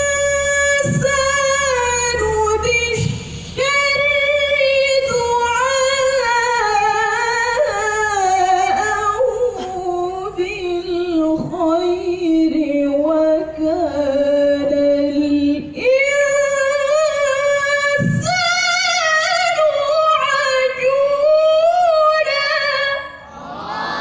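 A woman's voice reciting the Quran in the melodic tilawah style, long held phrases with wavering ornaments, amplified through a PA system. The phrases break briefly for breath about three seconds in and again past the middle.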